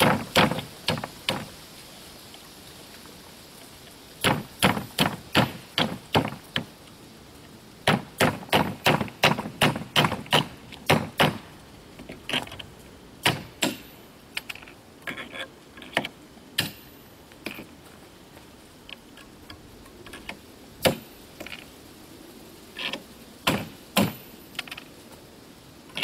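A hammer tapping on staples in a sheet of OSB to straighten them for pulling: quick runs of sharp taps, about three a second. Partway through, the taps give way to lighter, scattered clicks with a faint metallic ring, then a few more taps near the end.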